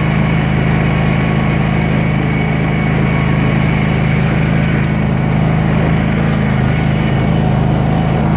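Gravely ZT XL-60 zero-turn mower's engine running steadily at wide-open throttle as the mower drives at full speed.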